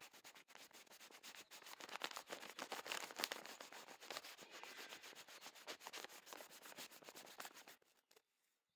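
Faint, irregular rubbing and scratching noise made of many quick scrapes and clicks. It stops shortly before the end.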